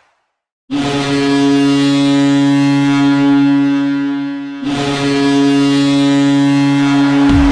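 Boston Bruins arena goal horn sounding two long, loud blasts at one steady low pitch. The first lasts about four seconds and the second about three, and the goal song's music comes in just as the horn stops.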